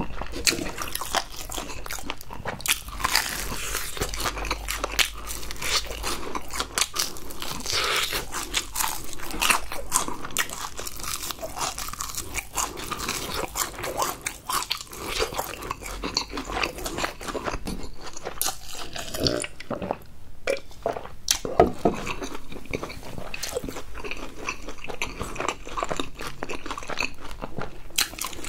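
Close-miked crunching and chewing of crispy, seasoning-dusted fried chicken, the coated crust crackling sharply with each bite in quick succession, with a short lull about twenty seconds in.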